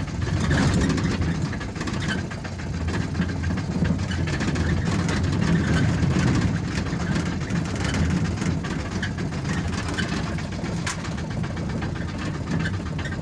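Car engine running and road noise heard from inside the cabin, a steady low rumble while the car is driven.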